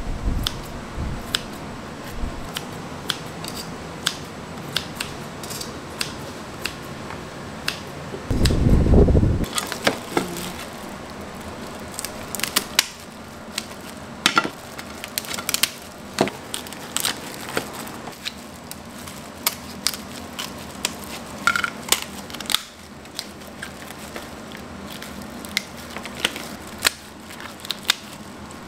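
Food-preparation handling noise: irregular clicks, clinks and knocks of hard objects being handled, with a brief low rumble about eight seconds in.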